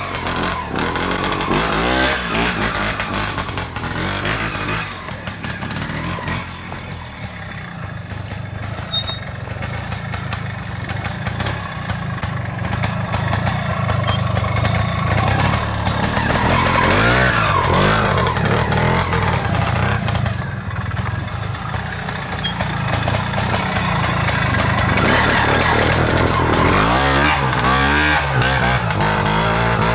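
Classic trial motorcycle engines blipping the throttle, the pitch jumping up and falling back in short revs as riders work over the rocks and slopes of a trial section, running lower and steadier between the revs.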